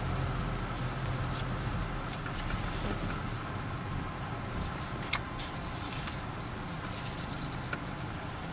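Honda Vezel heard from inside the cabin, moving slowly: a steady low engine and road hum that eases off about three seconds in, with a few light ticks and clicks, the sharpest about five seconds in.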